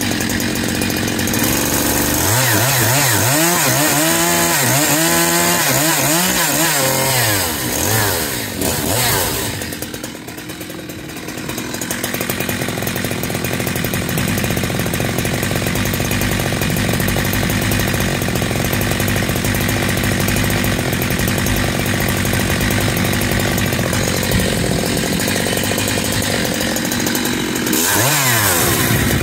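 Husqvarna 372XP two-stroke chainsaw, bored to 52 mm and fitted with a 272XP pop-up piston, running hard while cutting a log. Its pitch rises and falls for the first several seconds, eases off briefly about ten seconds in, holds steady at high revs for a long stretch, then rises and falls again near the end.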